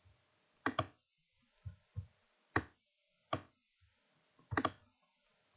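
Computer mouse button clicking, five or six sharp clicks, some in quick pairs, with a few softer low taps between them.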